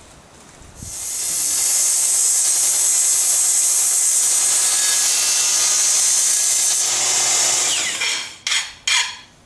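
DeWalt miter saw running and cutting through aluminum T-track: a loud, high-pitched cutting noise that holds steady for about seven seconds, then winds down with a falling tone. Near the end come short metallic strokes, about two a second.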